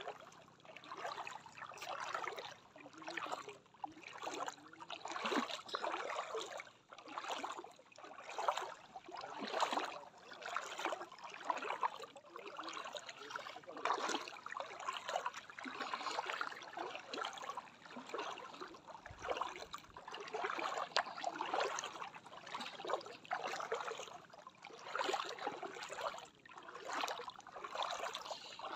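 Footsteps wading through shallow seawater: a slosh about once a second, kept up steadily.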